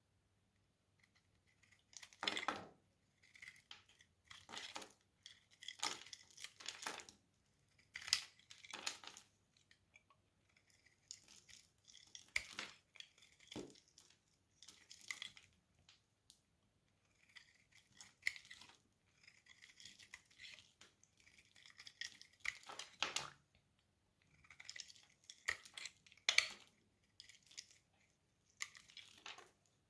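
A blade cutting and scraping through a bar of dry soap in a long series of short, crisp crunching strokes, about one every second or two, starting a couple of seconds in.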